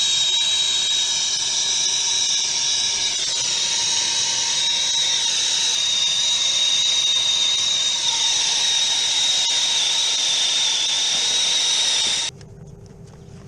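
Brazing torch flame running, a steady loud hiss with a thin high whistle in it, heating the copper joints to sweat out a refrigeration filter dryer. It cuts off suddenly near the end.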